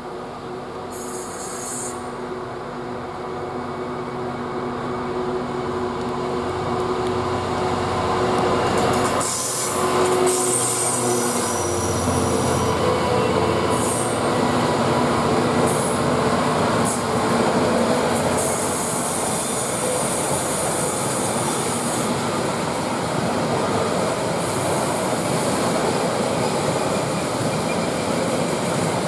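British Rail Class 66 diesel locomotive, its 12-cylinder two-stroke EMD engine working under power on the climb, approaching and getting louder until it passes close by about ten seconds in. A long rake of engineers' wagons then rolls past with a steady rumble of wheels on rail and a high wheel squeal in places.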